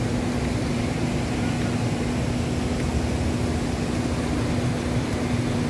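Steady rush of running, splashing water, with a constant low hum underneath.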